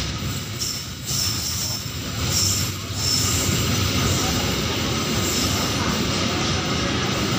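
Loaded freight flat wagons rolling past on the rails with a steady rumble of wheels on track. The rumble grows louder about three seconds in. High-pitched wheel squeals come and go in the first three seconds.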